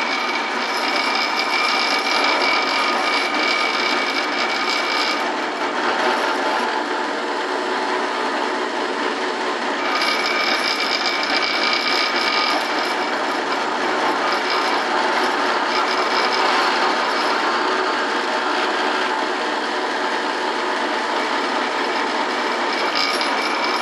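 Benchtop drill press running steadily while its bit is fed down to drill holes in a wooden board, a constant motor whine over the noise of the cutting.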